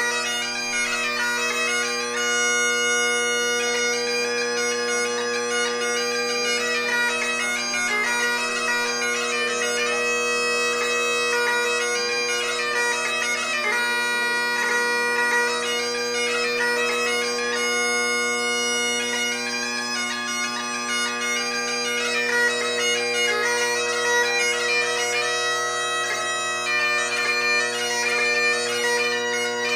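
Solo Great Highland bagpipe playing: the drones hold one steady low note while the chanter plays a changing melody above it.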